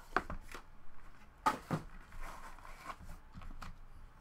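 A trading card box being opened and hard plastic card holders being handled: a series of light knocks and clicks with some rustling.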